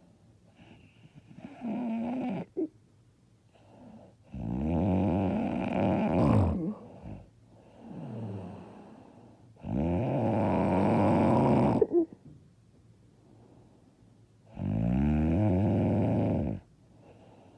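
A woman snoring, with long, loud snores about five seconds apart, each lasting roughly two seconds. There is a shorter, softer snore in the first few seconds, and quieter breathing between the snores.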